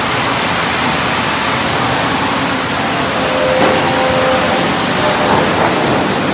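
Steady, loud din of running sawmill machinery, with boards riding along roller conveyors.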